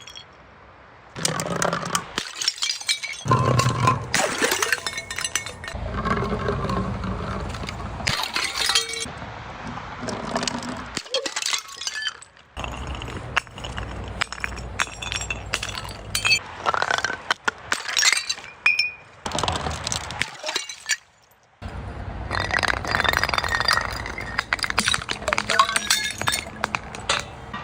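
Glass bottles being crushed and breaking: repeated runs of crunching, cracking and clinking glass shards, with short pauses between them.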